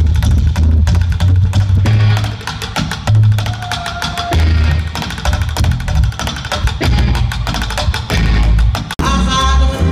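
Live band music: rapid clicking stick beats over deep upright-bass notes, with sticks being played on the upright bass. It cuts off abruptly about nine seconds in, and a country/bluegrass band with picked strings takes over.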